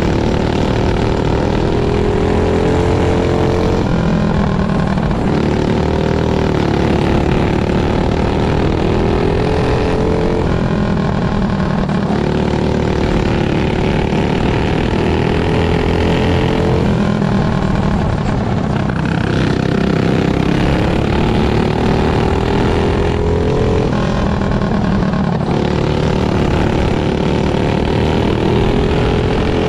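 Flat racing kart's small engine heard from on board, its pitch climbing along each straight and dropping back into each corner, about six times over.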